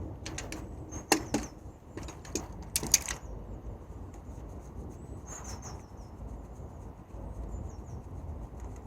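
Sharp metal clicks and knocks of a bolt and hand tools being handled on a car gearbox as it is unbolted, about six of them in the first three seconds. After that it is quieter, with a few faint high chirps.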